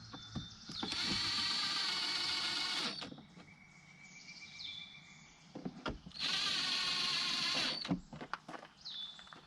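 Power driver running in two bursts of about two seconds each, driving two screws back into a truck door.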